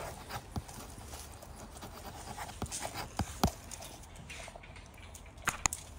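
Dogs moving close against a metal wire kennel panel: scattered light clicks and taps, the sharpest about halfway through and twice near the end.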